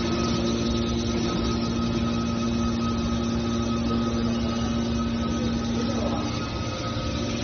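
Hydraulic scrap-metal baler running, its pump unit giving a steady hum with several fixed tones over mechanical noise. The strongest low tone of the hum fades about six seconds in.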